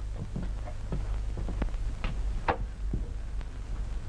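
Footsteps and shuffling of several men walking in through a doorway: irregular light knocks and scuffs, the loudest a little past halfway. Under them runs the steady low hum of an early-1930s film soundtrack.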